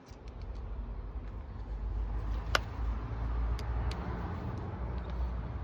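Sharp clicks and taps of a Fumagalli plastic outdoor light fitting being handled and clipped together, the loudest about two and a half seconds in, over a steady low rumble that swells in the middle.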